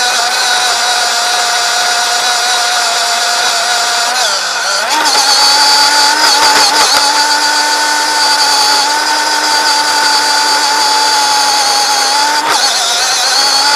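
RC car's electric motor whining steadily at speed; about four seconds in the pitch drops briefly, then climbs and holds higher, with another short dip near the end.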